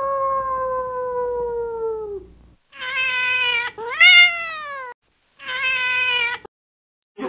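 Cat meowing, four times: a long, drawn-out meow that slowly falls in pitch, then three shorter meows, the third sliding up and back down.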